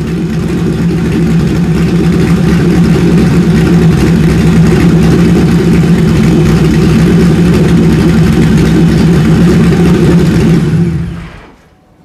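Ford Mustang GT V8 running steadily through its dual exhaust. It fades in at the start and fades out about eleven seconds in.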